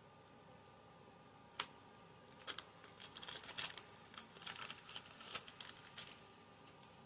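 Cellophane wrapper crinkling as it is peeled off a playing-card tuck box: one sharp snap about a second and a half in, then a run of quick crackles for about three and a half seconds.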